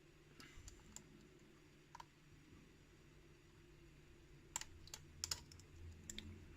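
Faint, sparse clicks of a lock pick and tension wrench working the pins of a challenge padlock, with a small cluster of clicks about two thirds of the way through.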